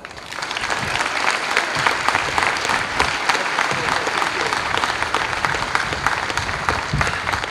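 Large audience applauding, many hands clapping together; the applause builds up just after the start and then holds steady.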